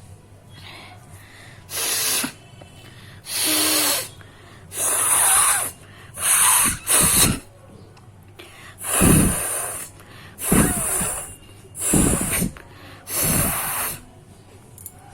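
A person blowing their nose hard into a tissue, again and again: about nine forceful blasts, each half a second to a second long, some with a low honk.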